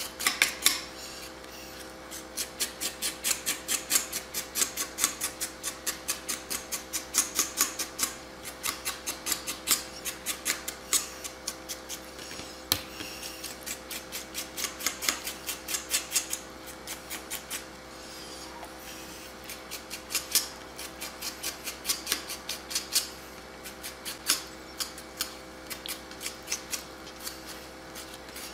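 Knife tip scraping and picking at a large peeled clam siphon on a cutting board, cleaning off the brown colouring: quick repeated scrapes and ticks, a few a second, with short pauses. A steady faint hum runs underneath.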